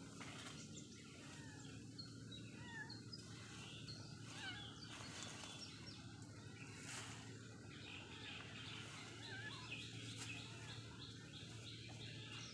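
Faint outdoor ambience: small birds chirping here and there over a steady low hum.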